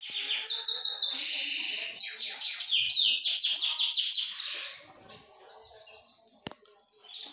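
Canaries singing: fast trills of rapidly repeated high notes for about four and a half seconds, then softer chirps. A single sharp click about six and a half seconds in.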